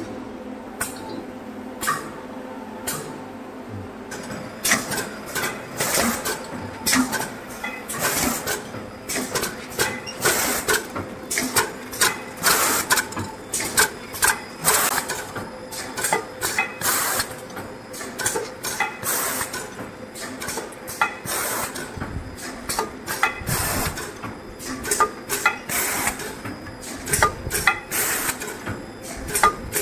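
Automatic multi-roll toilet tissue pillow packing machine running: a steady machine hum with sharp mechanical clacks, sparse at first and then a busy, irregular clatter from about four seconds in.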